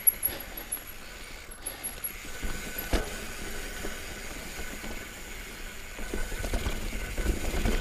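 Mountain bike rolling over a rocky trail: tyre noise and rattling of the bike, with a sharp knock about three seconds in.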